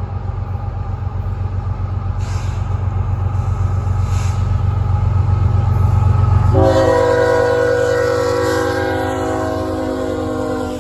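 An approaching BNSF freight train's lead GE ES44C4 diesel locomotive, its engine rumble growing louder. About two-thirds of the way in, the locomotive sounds its air horn in one long chord, held for about four seconds until it cuts off near the end.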